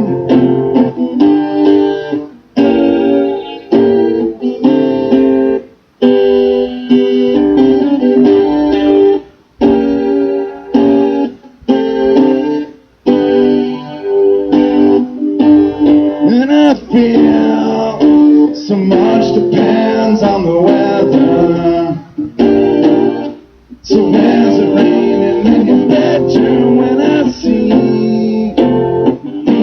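Live band music, a guitar-led passage with chords and pitch bends and no sung words.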